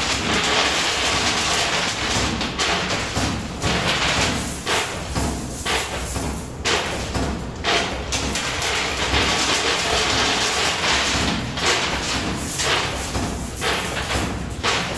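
Coin pusher machine in play: a dense, steady clatter of coins and machine noise with frequent sharp knocks.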